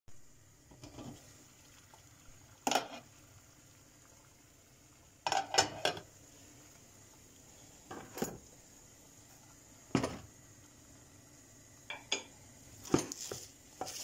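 Stainless steel pots and their glass lids clinking and knocking on a kitchen stovetop as they are handled: a series of separate knocks, with a quick cluster of three or four about five and a half seconds in.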